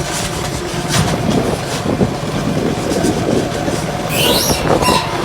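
Tractor and a six-foot seed drill running, with steady engine noise and irregular metal rattling and clanking, and a brief squeal about four seconds in.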